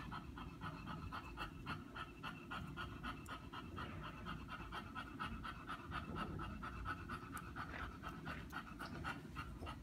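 An English bulldog panting fast and evenly.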